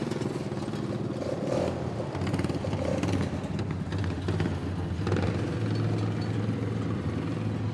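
Several racing lawn mowers' small engines running steadily as they circle the dirt track at a slow pace.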